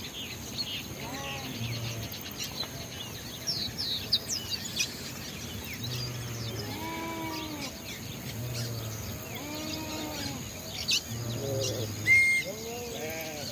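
Birds calling in the trees: thin high chirps and twitters throughout, over a lower arched call repeated every second or two, with one short, louder whistled note near the end.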